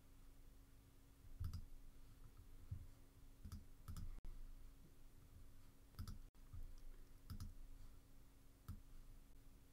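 Faint computer mouse clicks, about six of them spread irregularly, a few paired closely, over a faint steady low hum.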